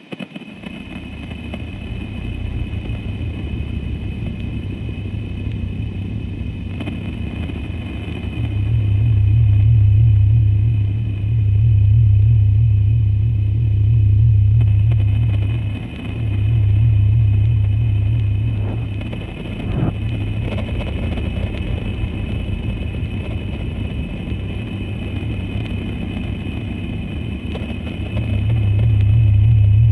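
Dark ambient drone music: a deep, throbbing low drone fades in, then swells and ebbs in long waves several seconds apart. Steady high whining tones sit above it.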